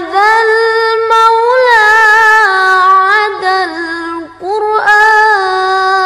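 A high solo voice singing an Arabic sholawat (a song of blessings on the Prophet) without accompaniment: long held notes with wavering, sliding ornaments, and a short break about four and a half seconds in before the next phrase.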